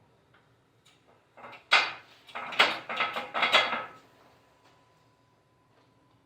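A quick run of clattering knocks and rattles, hard objects striking each other for about two seconds, starting about a second and a half in; the first knock is the loudest.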